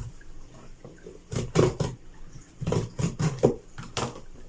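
A cardboard shipping box being opened and its crumpled packing paper handled: irregular rustling and crinkling in a few short spells, the first about a second and a half in and more around three to four seconds in.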